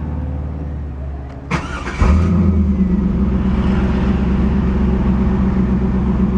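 A 2001 Chevrolet Camaro Z28's 5.7-litre LS1 V8 idling steadily. About a second and a half in there is a short clatter. Half a second later the engine note steps up louder and then holds steady.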